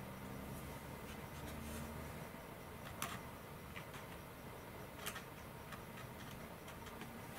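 Faint handling sounds as epoxy is worked around the servo tray of a carbon sailplane fuselage: a few light, irregular clicks and taps, the sharpest about three and five seconds in, over a low steady hum.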